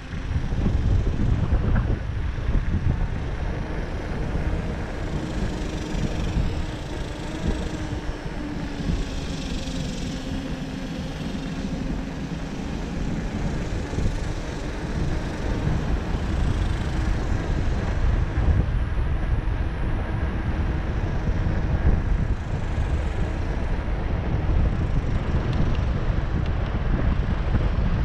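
Wind buffeting the microphone and the steady rolling noise of mountain bike tyres on a concrete path while riding.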